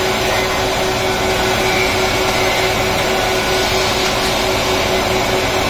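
Four-sided wood planer (moulder) running, a loud, steady machine noise with an even hum.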